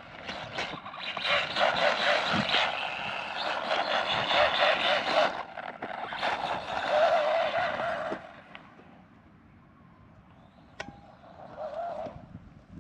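Mini RC truck's brushless electric motor and drivetrain whining as it is driven hard, the pitch rising and falling with the throttle, over tyre scrabble on dirt. The sound drops away about eight seconds in, with a short faint rev near the end.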